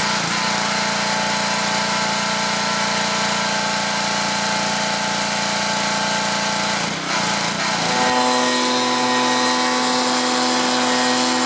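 Pressure washer running steadily while spraying, with a brief dip about seven seconds in, after which its pitch steps up and holds steady.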